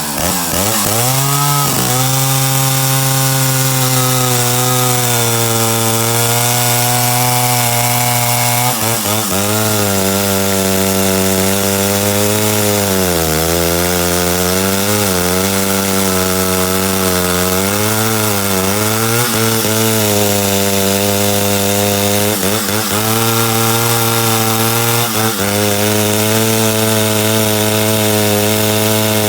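Old Stihl 051 two-stroke chainsaw revving up to full throttle and running at high revs. From about a third of the way in, its pitch dips and recovers several times as it cuts into wood under load, its chain a little dull.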